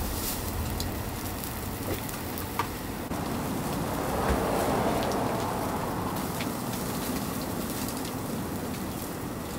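Food sizzling over a charcoal grill: a steady crackling hiss with a few sharp pops, swelling a little midway.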